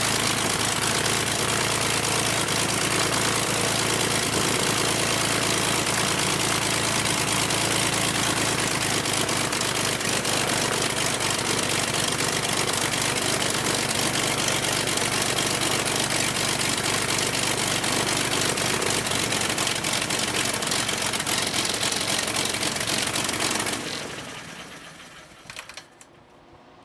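Franklin 180 air-cooled, horizontally opposed six-cylinder aircraft engine running steadily on a test stand, swinging its propeller, on its first test run. About 24 s in it is shut off and the sound dies away as the propeller winds down.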